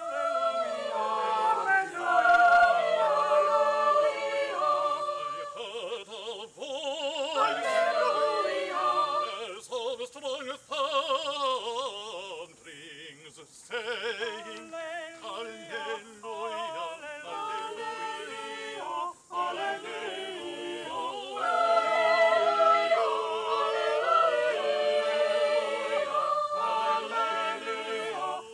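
Church choir of boys' and adult voices singing in parts. It begins right at the start, after a near-silent pause, and sings in phrases with brief breaths between them.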